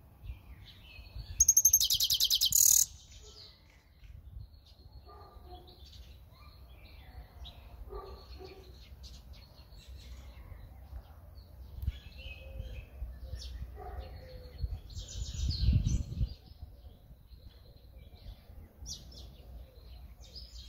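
Small songbird held in the hand singing: a string of short, high chirps and warbling phrases, with a loud, rapid, buzzy trill lasting about a second and a half near the start. A low thump comes about fifteen seconds in.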